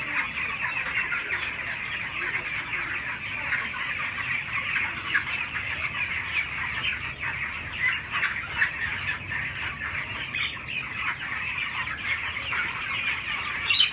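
A flock of young broiler chickens peeping and cheeping without pause, many calls overlapping into one continuous chorus.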